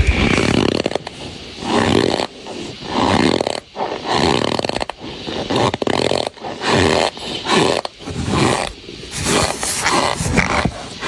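Pressed cornstarch bar squeaking and crunching as fingers squeeze and break it, in repeated strokes about a second apart.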